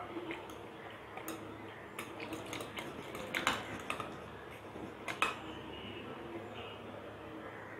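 A thin metal rod swirled through chopped banana stem in water in a glass bowl, clicking and tapping against the glass in an irregular run of strikes, the loudest about three and a half and five seconds in. The rod is being turned to wind up the stem's stringy fibres.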